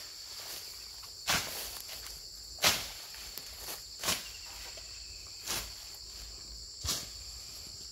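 Steady high buzzing of insects, with a short brushing swish through tall grass and brush about every second and a half.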